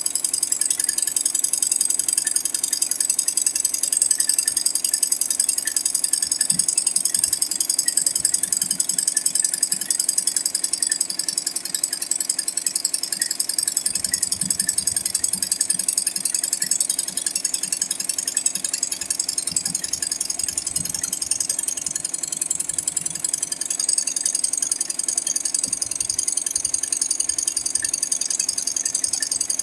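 Single-head, eight-needle computerized embroidery machine stitching, its needle bar making a rapid, even mechanical rattle.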